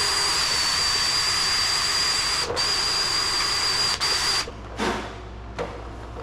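Power-tool wire wheel scouring the cast-iron block of a Ford 302 V8, a loud, steady hiss with a high whine that dips briefly twice and stops about four and a half seconds in, followed by lighter scraping. The wheel is stripping rust and scuffing the bare block so paint will stick.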